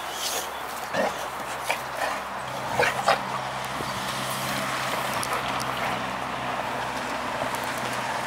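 Boxer dogs sniffing after a squirrel's scent, with a few short, sharp sniffs in the first three seconds, over a steady low hum.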